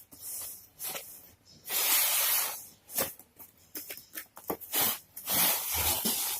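A packaging box being opened by hand: bursts of rustling and scraping, with scattered clicks and taps between them.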